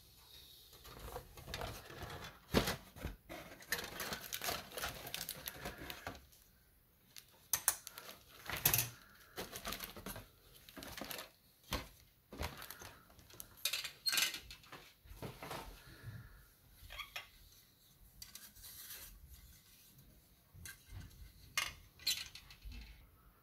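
Irregular small clicks, taps and scrapes of plastic model-kit parts and hobby tools being handled on a work surface, with a few sharper clicks among them.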